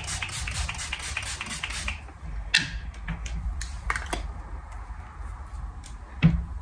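Setting spray (Milani Make It Last Original) misted onto the face from a pump bottle: a rapid run of hissy pumps, about five a second, for about two seconds. Then a few scattered clicks and a louder knock near the end.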